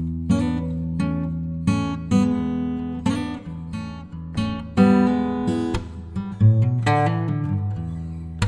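Background music: acoustic guitar strumming and picking chords in a relaxed rhythm.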